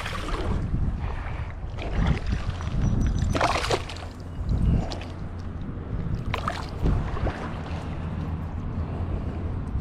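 Water splashing and sloshing in several irregular bursts, as a hooked smallmouth bass thrashes while being landed by hand, over a steady low rumble.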